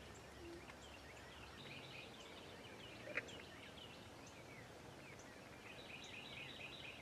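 Faint morning birdsong: several small birds chirping with many short, quick calls, and a thin steady high trill near the end. A single sharp click sounds about three seconds in.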